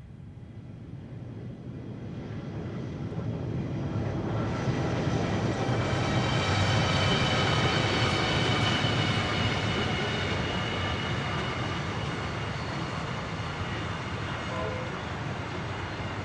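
Two NR class diesel-electric locomotives hauling an intermodal freight train past: the engine sound grows as they approach, is loudest as they go by about eight seconds in, and gives way to the steady rolling noise of the container wagons. A steady high whine sounds over the low engine note through the loudest part.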